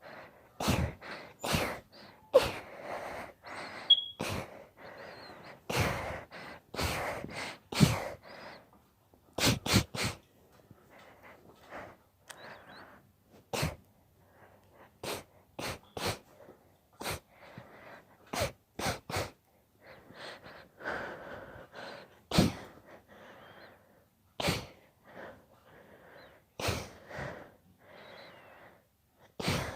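A woman sneezing over and over in a sneezing fit: a long run of sharp sneezes, some coming two or three in quick succession, with breathy, wheezy inhalations between them.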